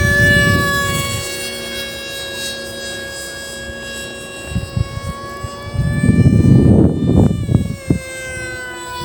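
Emax Eco II 2207 2400KV brushless motor spinning a 6x4 propeller, a steady high whine. It cuts out briefly about seven seconds in and comes back slightly lower in pitch, while a loud low rumble rises around six seconds.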